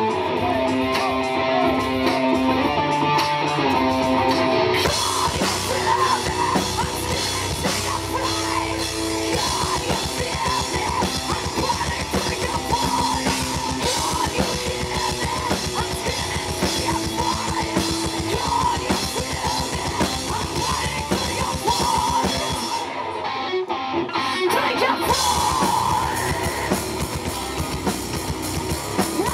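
Live heavy metal band playing: distorted electric guitars, bass and drum kit. It opens with held guitar notes over light drumming, the full band with dense drumming comes in about five seconds in, and the drums break off for about two seconds a little past twenty seconds in before the band comes back in.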